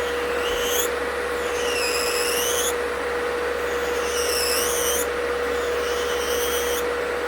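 Electric nail drill grinding down acrylic with a debulking bit: its high whine comes in five passes of about a second each, the pitch dipping as the bit bites and rising again. Under it a fan runs with a steady hum, really noisy.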